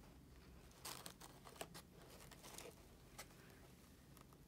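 Faint crinkling and crackling of a thin plastic bottle and paper towel being handled, a cluster of small crackles in the first couple of seconds and a few single clicks later, over near silence.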